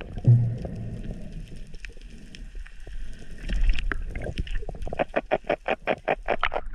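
Underwater sounds of a speared fish being grabbed and handled on the spear shaft: muffled knocks and rumbling, then a rapid run of pulses, about six a second, through the last two seconds.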